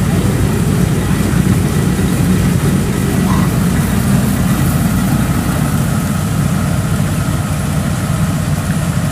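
Kubota DC70 combine harvester's diesel engine idling steadily while the machine sits bogged in mud, waiting to be towed out. A faint high whine joins about halfway through.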